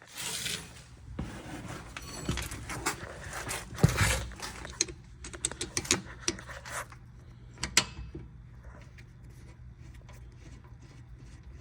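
Metal tools clinking and rattling at the brake caliper as its bolts are tightened, a run of irregular sharp clicks and knocks, the loudest about four seconds in, dying away after about eight seconds.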